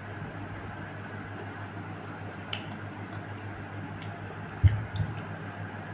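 Handling noise: two dull thumps close to the microphone about four and a half seconds in, as hands reach right up to the recording phone, over a steady low hum. A single faint click comes about two and a half seconds in.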